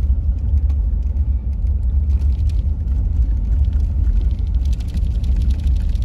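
Strong, uneven low rumble of wind buffeting the microphone in a snowstorm, with scattered faint ticks that are thickest near the end.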